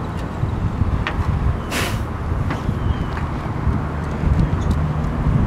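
Steady low outdoor rumble with wind on the microphone, broken by a light knock about a second in and a short scrape near two seconds as a metal telescoping beehive cover is handled.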